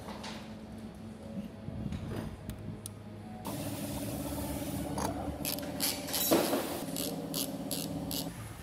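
Hand tools working on a diesel engine's fittings: metal scrapes and clinks, then a run of sharp clicks about three a second in the second half as a bolt is turned with a wrench. A steady hum runs underneath.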